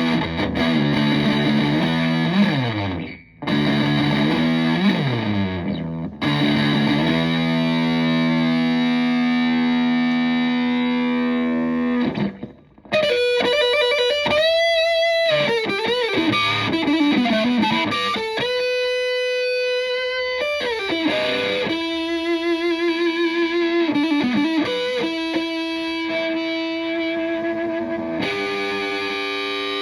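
Stratocaster through a Tone Bender MKII fuzz pedal and a Fender Twin Reverb-style amp: fuzzed chords sliding down the neck, a long held chord, then after a short break a single-note lead line with bends and vibrato.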